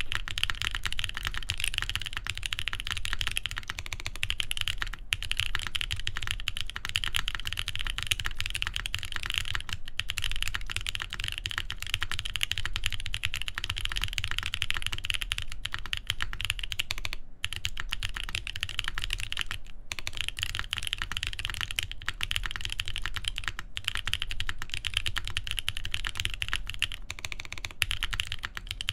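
Continuous fast typing on a TGR Jane v2 CE mechanical keyboard with lubed Boba U4T tactile switches, a full carbon fibre plate and GMK keycaps: a dense stream of keystroke clacks, broken by a few brief pauses.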